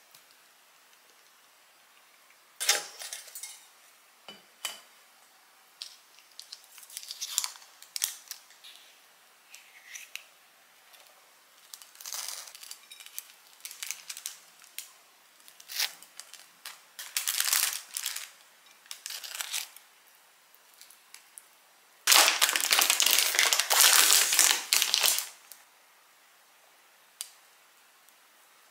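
Close-miked food-prep sounds: scattered short scrapes, taps and crinkles as a butter knife spreads cream cheese over a crisp toasted bagel and the toppings are handled. A little past two-thirds of the way through comes about three seconds of loud, continuous crinkling scrape.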